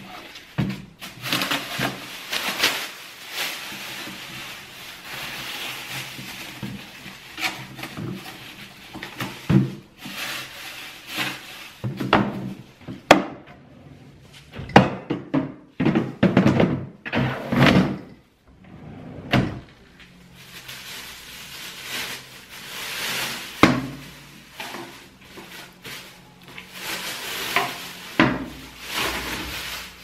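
Thin plastic bin liner rustling as it is fitted over the rims of waste bin inserts, then knocks and thuds as the inserts are set into a Blanco pull-out bin drawer and the drawer is moved, with a cluster of knocks around the middle. Soft background music runs underneath.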